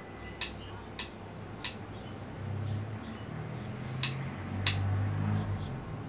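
Metal kitchen tongs on a homemade eel grabber clicking shut as the pipe handle is worked: five sharp clicks, three in the first two seconds and two more about four and five seconds in, over a low hum.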